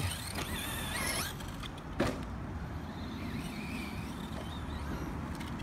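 Brushless electric motor of a 1/10-scale RC monster truck whining as it speeds up in the first second, then running with a fainter steady whine. There is one sharp knock about two seconds in.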